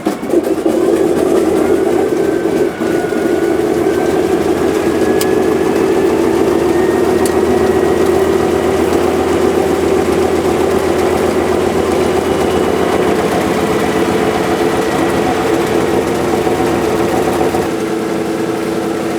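Antonov An-2's nine-cylinder radial engine running steadily, heard from inside the cabin, with a thin whistle that rises in pitch over the first several seconds and then holds. The sound drops a little near the end.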